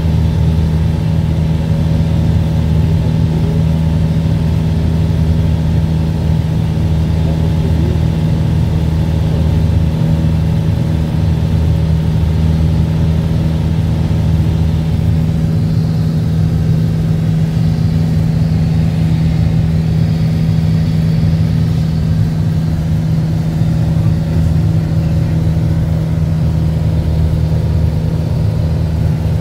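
Steady drone of a single-engine light aircraft's engine and propeller at cruise, heard from inside the cockpit.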